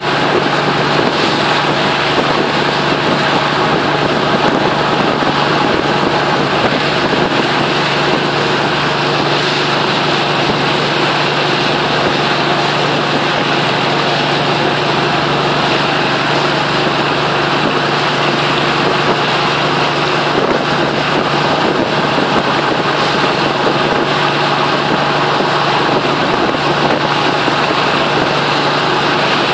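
A boat's engine running steadily with a constant low hum, under a steady rush of water and wind.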